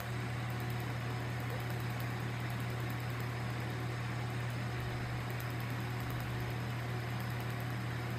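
Laser tattoo-removal equipment running: a steady low machine hum over an even hiss.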